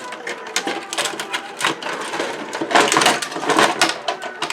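Quick metallic clicks and rattles of a desktop computer's sheet-metal case and parts being handled during disassembly, with a denser clatter about three seconds in.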